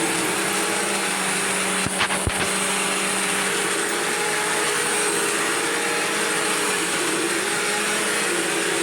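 Bissell CleanView upright vacuum cleaner running steadily on carpet, its motor giving a constant whine over a rushing hiss. A couple of sharp clicks or knocks come about two seconds in.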